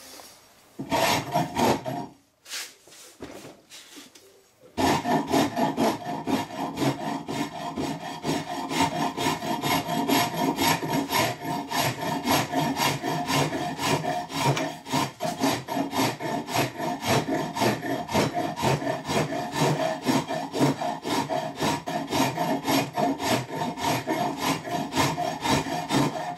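Farrier's rasp stroked back and forth over an ash axe haft, shaping the wood. A few short strokes at first, then quick, even strokes that run on steadily from about five seconds in.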